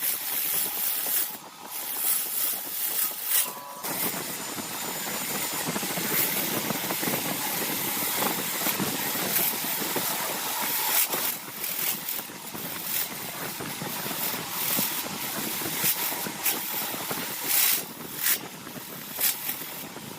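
Lathe spinning with a tool working the turning piece: a steady rough noise, broken by a few brief gaps in the second half.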